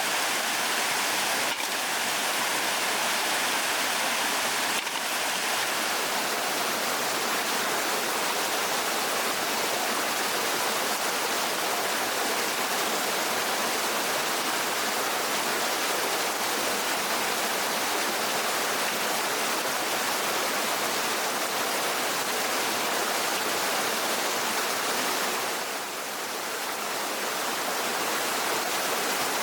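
Steady rush of water, an even hiss that dips briefly near the end.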